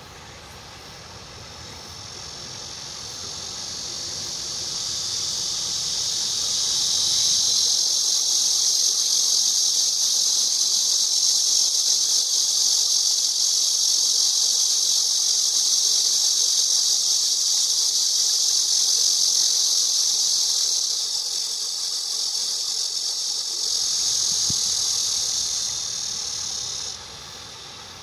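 A cicada singing a shrill, buzzing call. It swells up over several seconds, holds loud and steady, dips briefly, rises again and then stops abruptly near the end.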